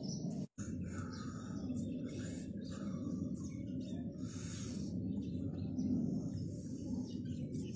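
Birds chirping in short, scattered calls over a steady low background hum, with a brief complete dropout to silence about half a second in.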